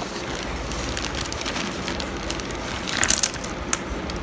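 Crinkling and crackling of a clear plastic packaging bag being handled and opened, with a louder burst of crackles about three seconds in.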